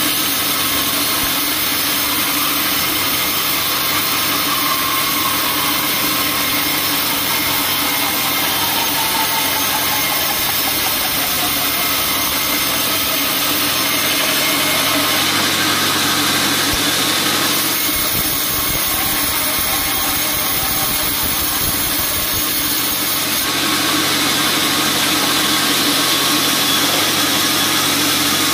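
Band sawmill running steadily as its blade saws a slab off a teak log, with a deeper rumble for a few seconds past the middle.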